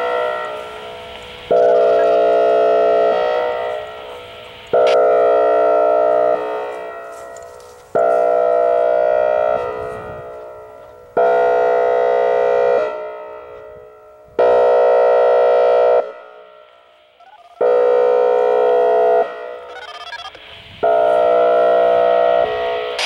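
Whelen Vortex R-4 electronic warning siren, with a rotating four-horn head, sounding its airhorn tone. A loud chord-like blast about a second and a half long repeats about every three seconds, and each blast trails off in a fading echo before the next.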